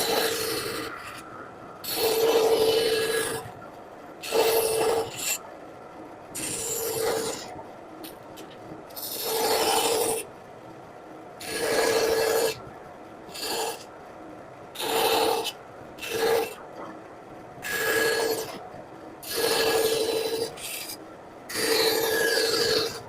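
A hand carving tool cutting into a woodblock, about a dozen separate scraping strokes, each half a second to a second long, coming roughly every two seconds with short pauses between.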